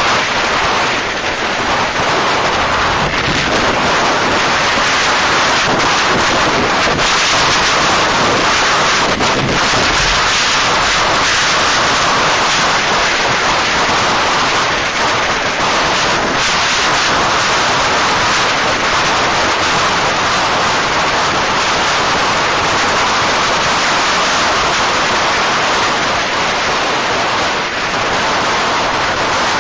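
Steady wind rush on the microphone of a camera riding on a moving vehicle at road speed, covering most other sound.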